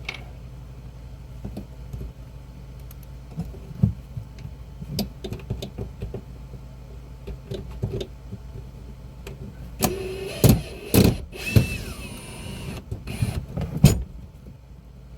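Scattered clicks and knocks of tools and trim panels being handled, over a low steady hum. About ten seconds in, a cordless drill-driver whirs in short runs, its pitch falling, amid sharp knocks, as it backs screws out of the headliner.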